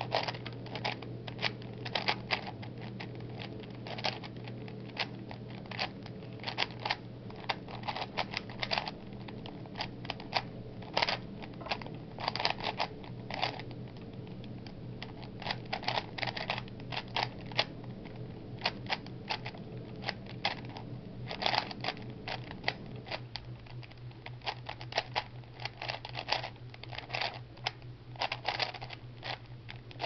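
A 3x3 Rubik's Cube being turned fast by hand: its plastic layers click and clack in quick, irregular runs of turns. A steady low hum sits underneath.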